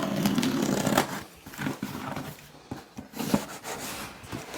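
Handling noise as a camera is repositioned: a muffled low sound for about the first second, then scattered clicks and knocks.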